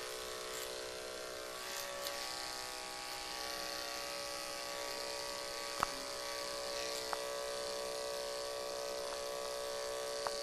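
Electric dog grooming clippers running with a steady buzz while trimming the hair on a miniature schnauzer's ear, with a few brief clicks.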